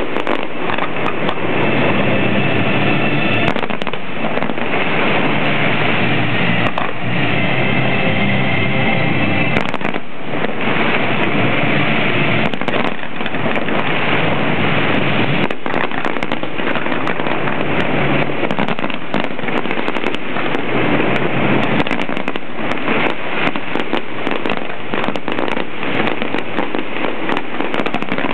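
Fireworks display going off without pause: a dense, continuous barrage of bangs and crackling from aerial shells and rising comets.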